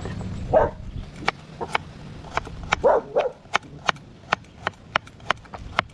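A kitchen knife slicing carrots on a wooden cutting board: sharp knocks of the blade striking the board, irregular at about two to three a second. A dog barks in the background once near the start and twice in quick succession about three seconds in.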